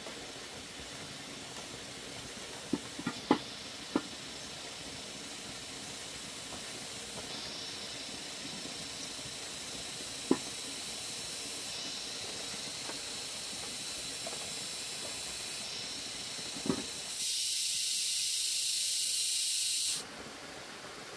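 A steady hiss with a few sharp clicks scattered through it. Near the end a louder, brighter hiss runs for about three seconds and then cuts off suddenly.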